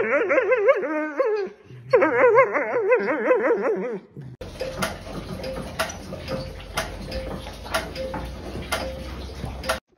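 A dog's long warbling whine, its pitch wavering quickly up and down, in two stretches with a short break between them. About four seconds in it cuts off, and a steady hiss with scattered sharp clicks follows.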